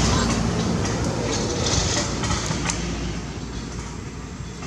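Rumble of a passing motor vehicle that fades steadily away, with a few faint clicks over it.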